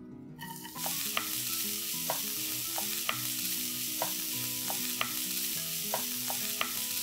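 Chopped onions hitting hot oil and sizzling in a pan, the hiss starting just under a second in, with a wooden spatula stirring them and clicking against the pan about twice a second.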